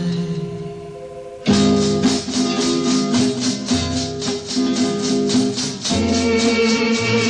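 Live band music: a held note fades, then about a second and a half in the band enters with strummed archtop guitar chords over a steady shaker beat of about four strokes a second; fuller sustained instrument tones join near the end.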